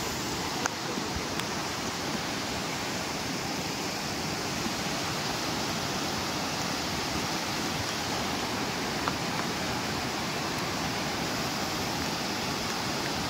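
Loud, steady rush of a muddy mountain stream in flood, pouring down over rocks and small falls, swollen by heavy rain.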